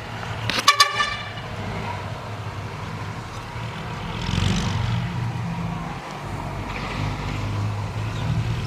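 A vehicle horn toots twice in quick succession about a second in, over the steady low running of heavy diesel earthmoving machinery. A rushing noise swells briefly about four seconds in.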